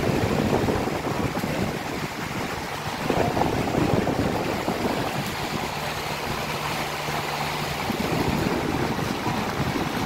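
Lasko electric fan running, a steady rush of moving air with an unsteady low rumble where the airflow buffets the microphone.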